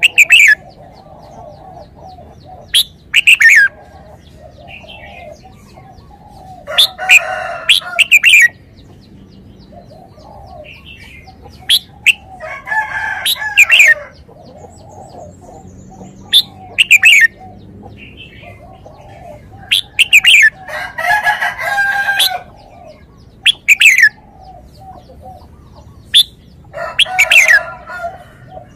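Red-whiskered bulbul singing: short, loud whistled phrases of quick falling notes, repeated every few seconds. Domestic fowl call in the background.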